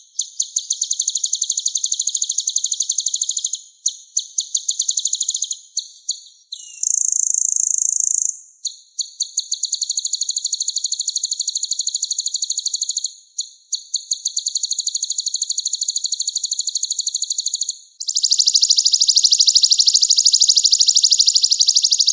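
Konin songbird singing in long, very fast rolling trills of high notes, each phrase several seconds long with short breaks between. A brief steady high whistle comes about seven seconds in.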